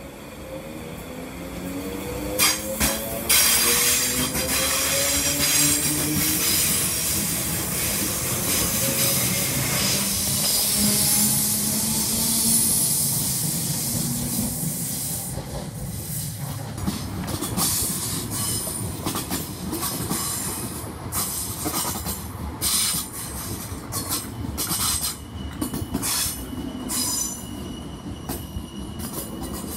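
ScotRail electric multiple unit pulling away. Its traction motors whine, rising steadily in pitch over the first ten seconds or so, then the wheels clack over rail joints as the carriages pass. A thin, steady wheel squeal comes in near the end.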